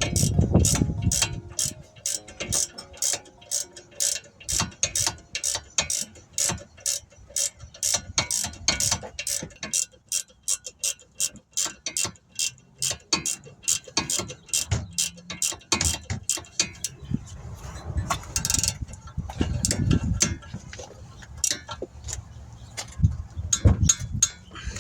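Ratchet wrench clicking in a steady run of quick strokes, about two or three clicks a second, as bolts are turned, with a few dull knocks from the work.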